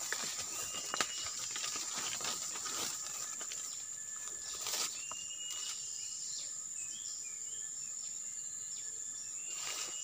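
Forest ambience: a steady high insect buzz, with a bird's short level whistle repeated every few seconds and a few quick chirps around the middle. A few soft rustles or steps in the dry undergrowth break in now and then.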